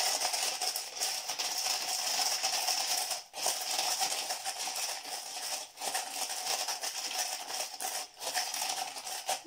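Crushed glass pieces rattling and scraping against a disposable cup as they are stirred with a wooden craft stick to coat them in mica powder and glue. The stirring runs steadily with three brief breaks.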